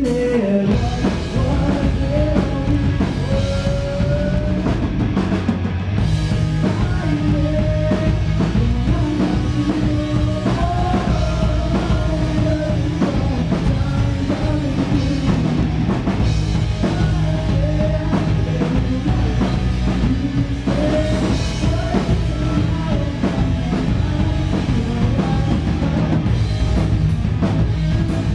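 Rock band playing live: electric guitars and bass over a drum kit, with a melody line wandering up and down above the chords. The music stays loud and steady throughout.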